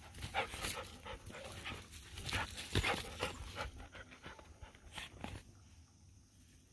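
A dog panting rapidly, in quick breathy strokes that die down over the last second or so.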